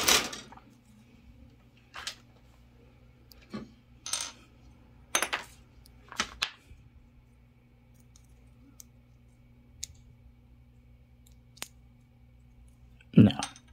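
Plastic model-kit parts clicking and clattering as they are handled, fitted together and set down: a run of sharp clicks over the first several seconds, a few faint ticks, then one loud click near the end.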